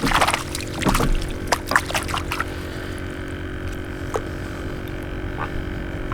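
Water splashing and dripping around a fishing kayak, with light clicks and knocks in the first couple of seconds, over a steady low hum.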